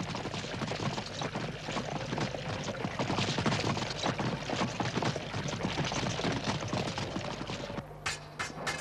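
Hooves of a troop of horses clattering past, mixed with a fountain splashing. Near the end this cuts off, and three sharp metallic clicks of fencing foils striking each other follow in quick succession.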